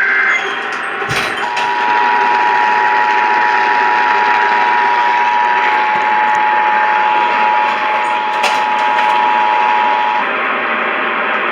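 Emergency Alert System activation over a hissy radio signal: the last of the screeching SAME digital header ends just after the start, and about a second and a half in the two-tone EAS attention signal (853 and 960 Hz) begins and holds steady for about nine seconds before cutting off.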